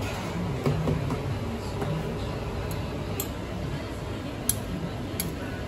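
A few sharp clinks of tableware over a steady background din with faint voices, the loudest clink about four and a half seconds in.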